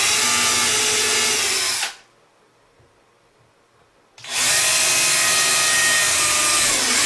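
Power drill boring a pilot hole into hard oak for a hinge screw, running steadily in two runs. The first stops about two seconds in, and the second starts a little after four seconds.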